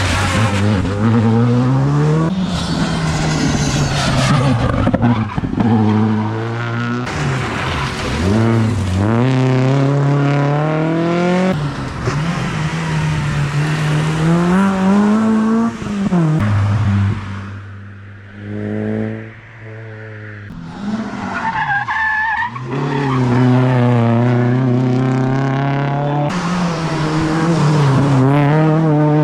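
Rally cars at full attack, engines revving hard and rising in pitch, then dropping at each gear change or lift, over and over as one pass gives way to the next. The engine note fades for a few seconds past the middle, then a car comes back loud.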